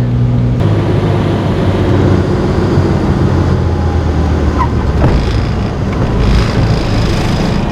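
Steady drone of a single-engine piston aircraft, a Cessna 210 Centurion, heard from inside the cabin with rushing airflow noise; the engine note shifts abruptly under a second in.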